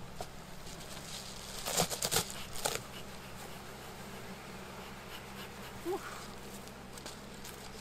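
Honeybees buzzing over an open hive, with a cluster of short puffs from a bellows smoker about two seconds in. A single bee flies close past near the end, its buzz briefly rising in pitch.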